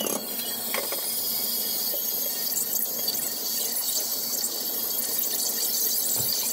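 A large aluminium pot of porridge boiling on a gas burner: a steady hiss with fine crackling bubbles.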